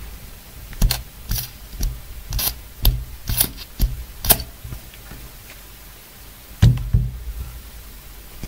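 Butane being pumped from a gas canister into a triple-flame torch lighter's refill valve: about eight short hissing spurts with clicks over three and a half seconds. About two-thirds through, a single knock follows as the lighter is set down on the desk.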